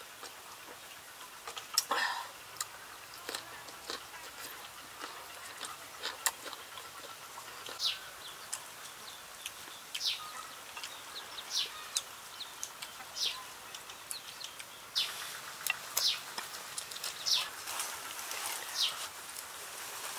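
Birds chirping: short, high calls that drop in pitch, repeating every second or so, with scattered sharp clicks, the loudest about two seconds in.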